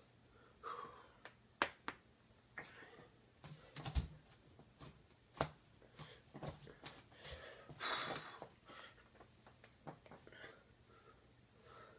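Back joints cracking: a series of sharp, irregular cracks and pops, with several breathy exhalations in between.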